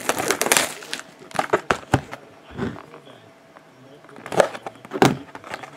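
Plastic shrink wrap on a sealed trading-card box crinkling as it is handled. Near the end come a few sharp clicks and scrapes as a utility knife cuts into the wrap.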